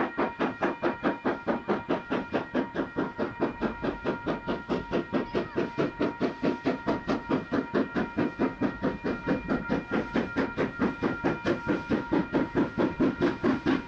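NZR Ja class 4-8-2 steam locomotive working hard, with a rapid, even exhaust beat at about five chuffs a second that grows a little louder as it approaches. A level-crossing alarm bell rings steadily throughout.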